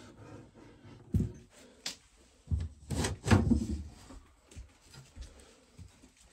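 Wooden knocks and a rubbing slide of kitchen cabinetry being opened and shut: single knocks about a second and two seconds in, then a louder run of knocks and scraping.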